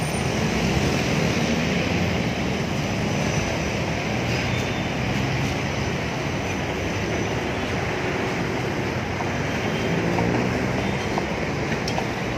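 Dense multi-lane city traffic running steadily: a mix of car, jeepney, bus and motorcycle engines with tyre noise, a constant low rumble under a wide hiss.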